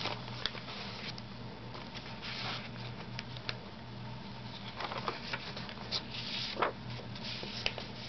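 Paper pages of a handmade journal being turned and handled: soft rustling with a few sharp clicks, over a low steady hum.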